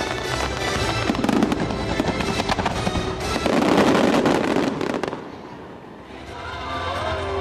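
A dense barrage of fireworks: rapid bangs and crackle over loud show music, swelling to a peak about four seconds in, then dying away. Near the end, soft music with a gliding melody carries on alone.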